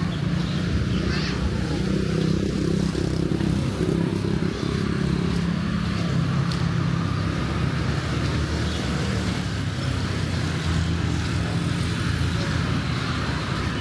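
Road traffic: vehicle engines running and passing close by, a steady low rumble over the general hum of a busy street.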